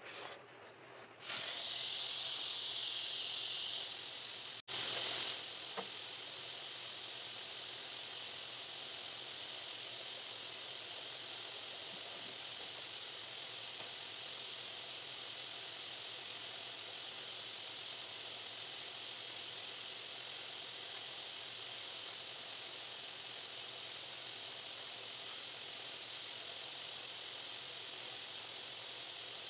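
Steady, high-pitched hiss of air rushing through a carpet-cleaning vacuum hose and wand. It is louder for the first few seconds, breaks off for an instant near five seconds, then holds even.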